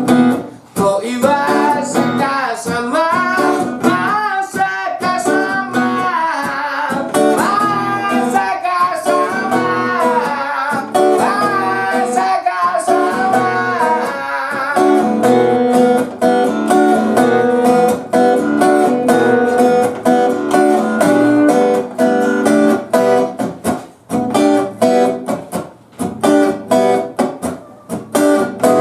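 A man singing to his own strummed acoustic guitar. About halfway through the voice stops and the guitar carries on alone, with choppy, clipped strums near the end.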